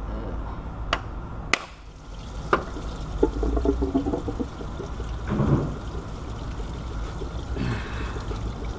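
A pry bar tapping the water pump loose on a 2006 Pontiac G6's 3.5 V6: three sharp metal taps in the first few seconds, then coolant pouring and trickling out of the engine where the pump has come free.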